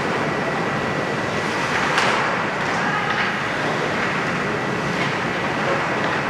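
Steady gymnasium noise during a basketball game, with a brief sharp knock about two seconds in and a faint steady high tone underneath.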